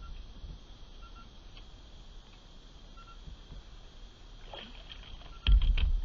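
Faint steady outdoor background with a few short, faint beeps, then light clicks and a loud, low handling knock and clatter near the end, from gear being moved in a kayak.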